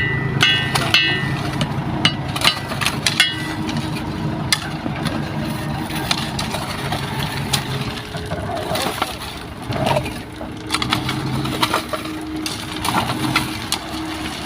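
Heavy diesel machinery running, with scattered knocks and clatter throughout; the engine hum is strongest in the first half and swells again briefly past the middle.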